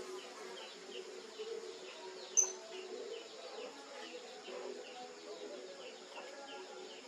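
Small birds chirping, short falling chirps repeated a few times a second, with one sharp, high chirp about two seconds in, over a faint low background murmur.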